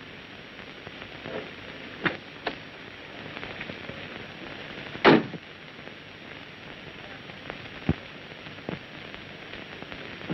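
Steady hiss and crackle of a 1930s optical film soundtrack, with a few scattered clicks and a louder thump about five seconds in.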